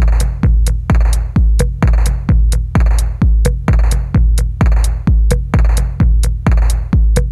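Electronic dance music with a heavy drum-machine kick about twice a second and sharp ticks between the beats.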